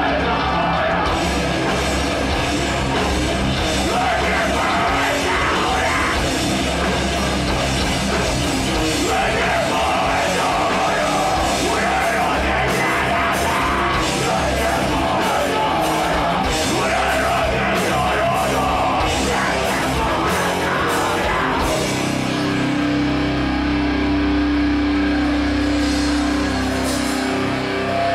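Rock band playing loud heavy rock with a singer; the singing stops about 22 seconds in and the instruments carry on with steadier held chords.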